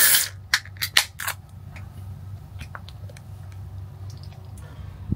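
Aluminium beer can of lager pulled open: a sharp pop with a short hiss of escaping gas, followed over the next second or so by a few light clicks as the can is handled, then a steady low hum.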